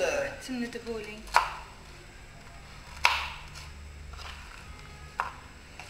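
Knife cutting crusty bread into cubes on a wooden chopping board: three sharp knocks of the blade hitting the board, roughly two seconds apart.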